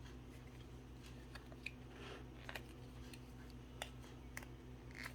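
Faint scattered clicks and taps of small hard-plastic toy pieces being handled and opened, over a steady low room hum.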